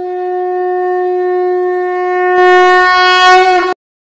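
Conch shell (shankh) blown in one long, steady note. It grows louder and brighter near the end and cuts off abruptly a little before the four-second mark.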